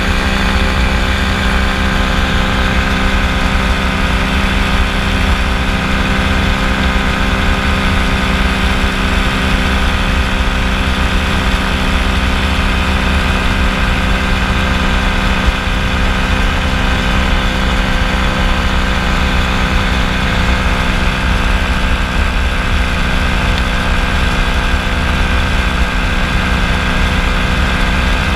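Kolb FireFly ultralight's engine running steadily in flight: a constant drone that holds the same pitch throughout.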